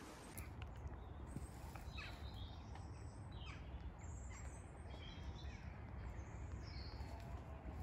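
Wind rumbling on the microphone, with birds giving several short calls that fall in pitch, scattered through the middle.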